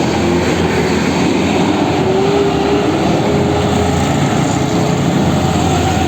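Tour bus's diesel engine running loudly under load, its pitch rising slowly as it pulls away, then holding steady.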